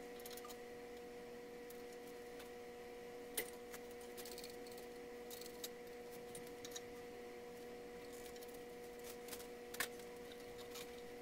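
Faint light metallic clinks and clicks from the engine hoist's chains and a metal battery box as the box is guided into the engine bay, two sharper ones about three seconds in and near the end. A steady faint electrical hum runs underneath.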